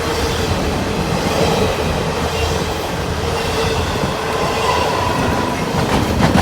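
CN intermodal freight train's cars rolling past: a steady rumble of steel wheels on rail, with a faint thin wheel squeal now and then.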